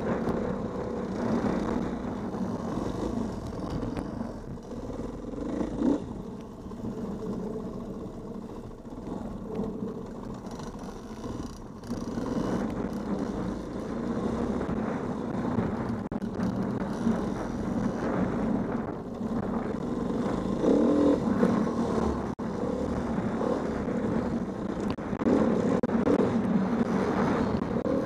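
Dirt bike engine heard from onboard while riding a dirt trail, its pitch rising and falling with the throttle and getting louder in the last third.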